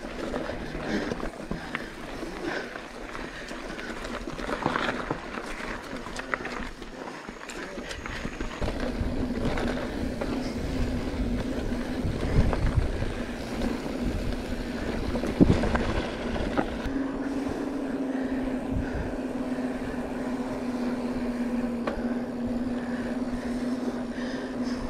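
Mountain bike ridden fast over a rough trail, with tyre rumble and the bike rattling in scattered clicks and knocks. In the second half a steady low hum sets in, the knobby tyres running on smoother, paved ground.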